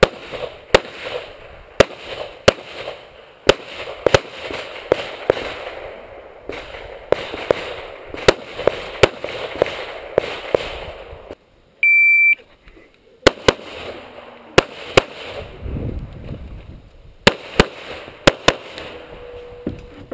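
Semi-automatic pistol shots fired in quick strings at a practical shooting stage. About twelve seconds in, after a brief hush, a shot timer gives its short start beep, and the shots resume about a second later.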